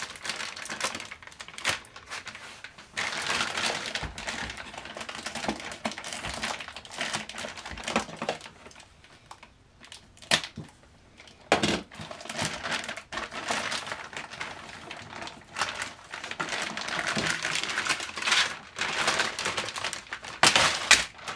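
Clear plastic bag crinkling and rustling as it is handled and pulled about, with scattered clicks and knocks. It goes quieter for a moment about halfway through.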